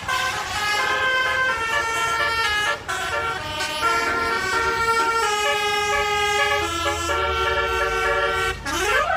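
Truck-mounted multi-trumpet 'basuri' telolet air horn playing a tune of held notes that step up and down. Near the end the notes give way to a wailing, siren-like glide.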